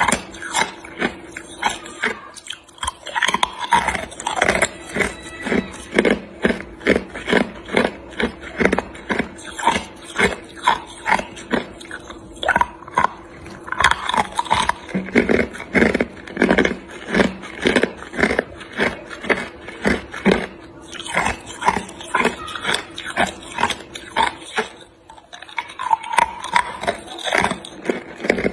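Hard clear ice cubes bitten and crunched between the teeth close to the microphone, a sharp crunch every half second or so in long runs with a couple of short pauses.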